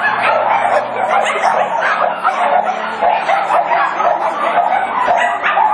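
Many caged dogs barking at once, a loud, continuous clamour of overlapping barks.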